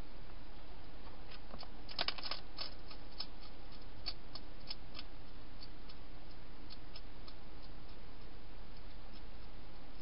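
Wild hedgehog crunching dry food: irregular sharp clicks, a quick run of them about two seconds in, then scattered clicks that thin out. A steady low hum and hiss lie underneath.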